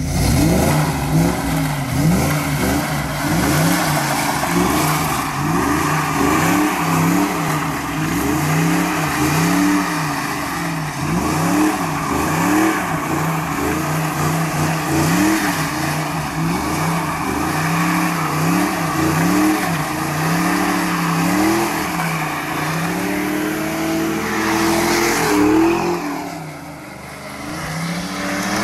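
Ford SN95 Mustang GT's V8 revved hard and let fall again and again, about once a second, as the car spins donuts with its rear tyres spinning. Near the end the revs drop briefly, then climb again.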